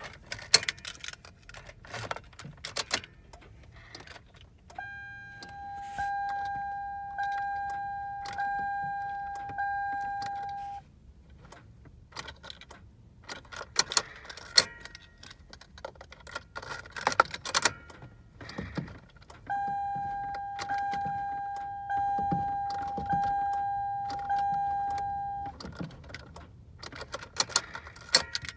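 Car keys jangling and clicking in the ignition of a 2005 Toyota Sienna that won't start. Twice a dashboard chime sounds, a repeating ding of about five chimes lasting some six seconds each time.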